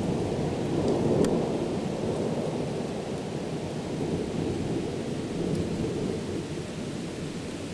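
Thunder rolling during a thunderstorm, swelling about a second in and then slowly dying away, with rain falling.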